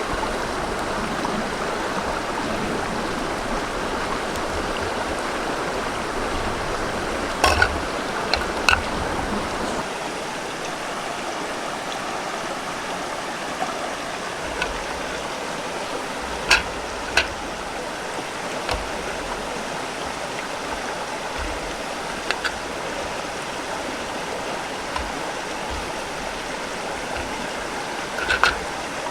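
A river stream running steadily over rocks, a little quieter after about ten seconds, with a few sharp short knocks scattered over it.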